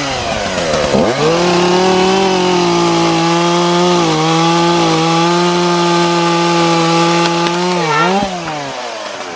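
Chainsaw cutting through a live mango branch. The engine revs up about a second in and holds a steady high pitch under load through the cut, then the revs drop away near the end as the severed branch falls.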